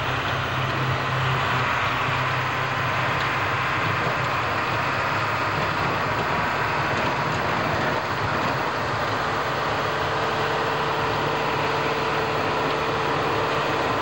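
Snow plow dump truck running steadily as its front blade pushes snow along the road: a continuous engine rumble under a steady scraping, rushing noise, with the truck passing close by near the end.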